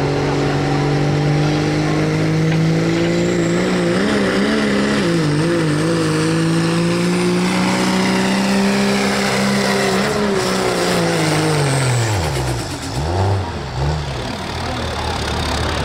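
Dodge Ram turbo-diesel pickup pulling a sled at full throttle. The engine note wavers about four seconds in while a high whine climbs, then the engine holds and rises. About twelve seconds in the revs drop sharply as the throttle comes off at the end of the pull, followed by two short blips of the engine.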